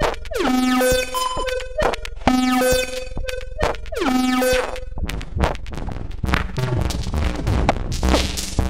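Electronic music made from Behringer UB802 mixer noise and aux send/return feedback, sequenced and modulated by an Elektron Octatrack. Pitched feedback tones repeat in a sequenced pattern with falling pitch sweeps, and about five seconds in the sound turns into a denser, noisier texture with a heavy low end.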